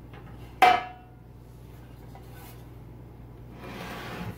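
Kitchenware knocks once on the counter about half a second in, a sharp clank with a short ring. Near the end there is a soft scraping.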